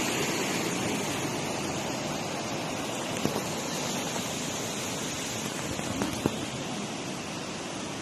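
Steady rush of a fast-flowing river cascade, growing slightly fainter as it goes, with two light knocks about three and six seconds in.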